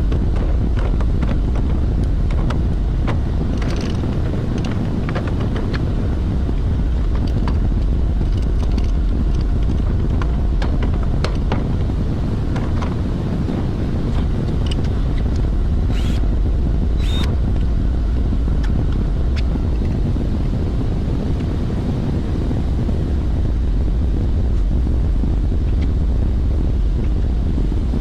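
Steady, loud low rumble of running industrial machinery, with scattered light clicks and two sharp metallic knocks about two-thirds of the way through.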